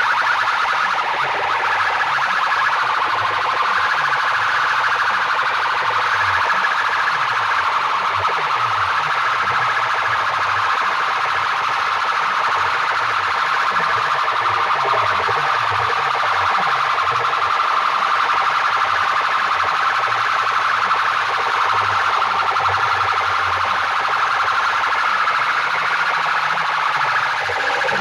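Competition DJ sound-box speaker stacks blasting a loud, siren-like electronic wail over rapidly repeating falling bass sweeps.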